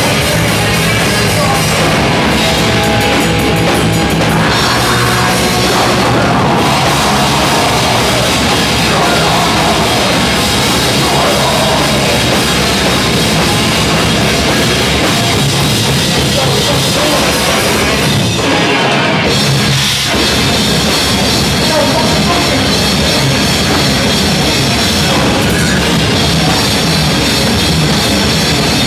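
Loud rock band playing, with a pounding drum kit, heavy and dense throughout.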